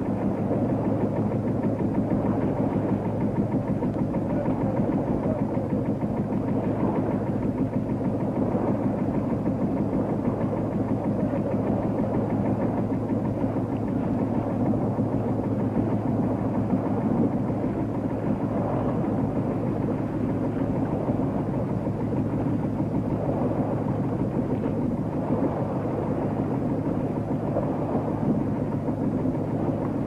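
Greek caique's engine running with a steady low drone.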